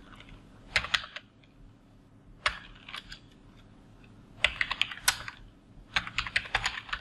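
Computer keyboard typing: keys clicking in short bursts of several strokes, with pauses between the bursts.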